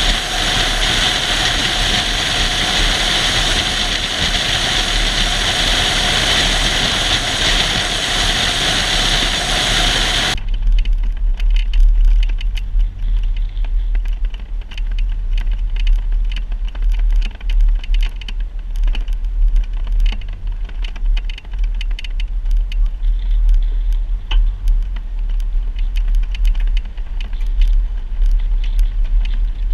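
Off-road vehicle driving on a rough trail. A loud, dense, steady noise cuts off suddenly about ten seconds in, giving way to a low engine rumble with frequent clicks and rattles.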